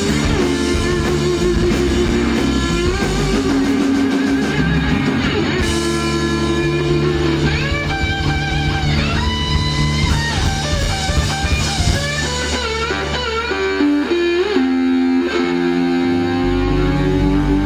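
Live electric blues band playing: electric guitars, electric bass and drum kit, with a lead line of held and bent notes over the band. The lowest end drops away for a few seconds and comes back in strongly near the end.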